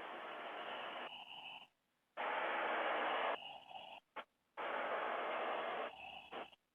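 Steady hiss of a doorbell camera's microphone, with no clear single sound in it, dropping out to silence briefly three times.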